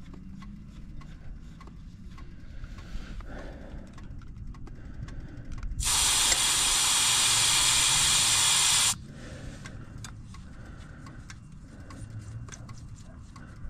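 A steady hiss of gas released under pressure, starting about six seconds in and lasting about three seconds before it cuts off suddenly. Faint clicks and handling sounds come before and after it.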